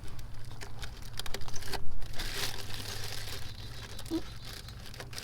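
A crinkly protective wrap being handled and pulled off where the carburetor mounts, crackling with scattered small clicks, loudest about two seconds in.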